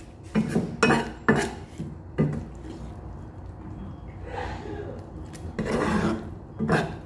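Spatula scraping and knocking against a wok while stirring baby squid in a thick sauce, in a series of short irregular strokes with a softer pause in the middle.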